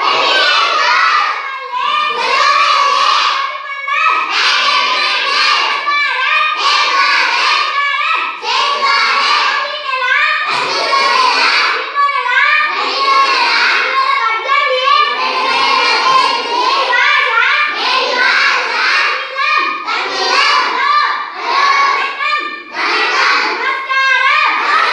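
A group of schoolchildren chanting Tamil phrases together in chorus. The voices come in short rhythmic phrases with brief breaks about every one to two seconds.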